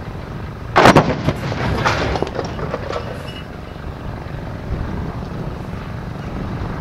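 Research rocket exploding after falling back to the ground: one loud bang about a second in, then a rumble that dies away over the next couple of seconds.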